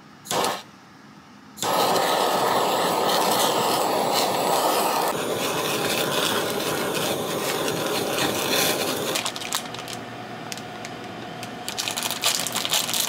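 Handheld butane kitchen torch, after a brief burst about half a second in, catching and running with a loud steady hiss as it flames a pan of stir-fried pork. Near the end, crinkly clicks from a plastic instant-noodle packet being torn open.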